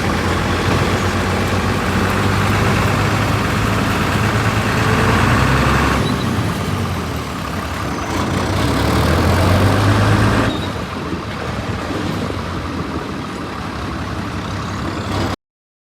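A motor vehicle's engine running steadily with a low hum under a heavy rushing noise. The sound shifts abruptly about six and ten seconds in, then cuts off suddenly near the end.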